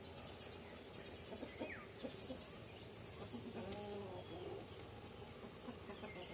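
Faint outdoor yard ambience: birds chirping now and then, and one brief, faint animal call that rises and falls just past halfway.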